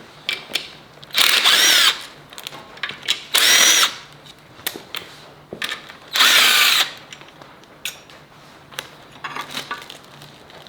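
Handheld power drill run in three short bursts, each under a second, its pitch rising and falling as it spins up and down, with small metallic clicks between the bursts.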